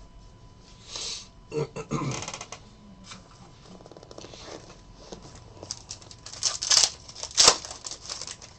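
Trading cards and plastic penny sleeves being handled: irregular rustling and scraping with a few short sharp taps, the loudest ones near the end.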